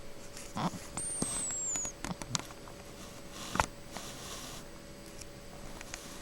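A pet chicken asleep and snoring: a short low snore near the start, a thin high whistle that dips slightly for about a second, and a few sharp clicks, the loudest about halfway through. The owner says nothing is wrong with the bird; it is just snoring in its sleep.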